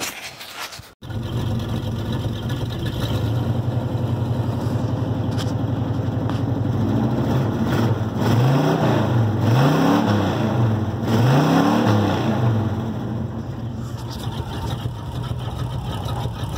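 A 1978 Chevrolet farm truck's engine idles, heard from inside the cab. It is revved a few times with the gas pedal, each rev rising and falling in pitch, and then it settles back to a steady idle.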